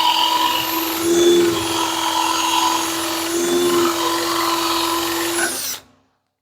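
Power drill spinning a 1-inch Forstner bit, boring a deep hole into a wooden 1x4 board, with a steady motor tone that shifts a little under load. It cuts off abruptly near the end.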